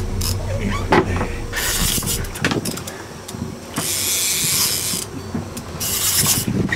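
Fishing reel ratcheting in three spells of about a second each as an angler fights a fish on a trolling rod.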